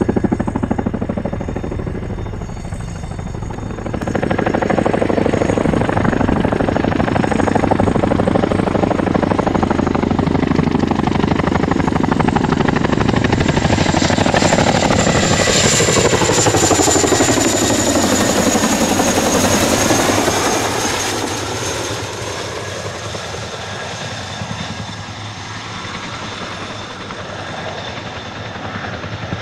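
Boeing CH-47 Chinook tandem-rotor helicopter flying past low: a steady rotor thudding with a high turbine whine, growing loud as it comes close, loudest through the middle, then fading somewhat as it moves away.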